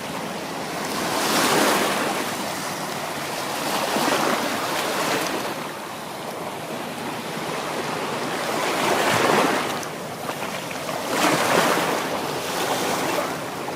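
Small sea waves washing onto a sandy beach, a steady hiss of surf that swells louder every few seconds.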